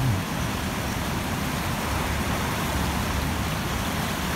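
Fast-flowing, flood-swollen river (the Sorgue) rushing past: a steady, even rush of water with a low rumble underneath.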